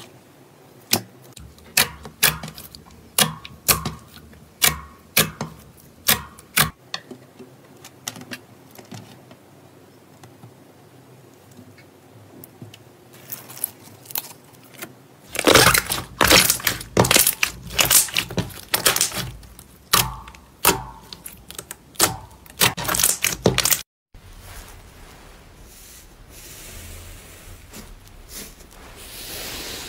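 Slime being pressed and poked by hand, with a string of sharp clicks and pops from trapped air. A louder, dense run of popping comes in mid-way as slime is pushed through a wire cooling rack, and near the end a softer rustling as a fluffy slime is squeezed.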